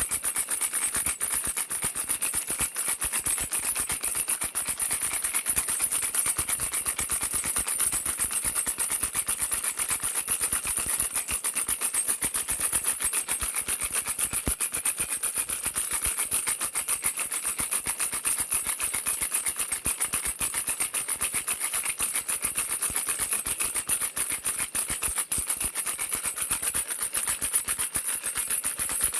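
Baby rattle shaken continuously: a dense, fast rattle of many small clicks with a bright, high ringing edge, going on without a break.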